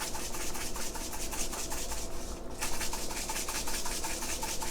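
Crushed red pepper flakes being shaken from a container over a pot, a fast run of scratchy rattling strokes with a short pause about two seconds in.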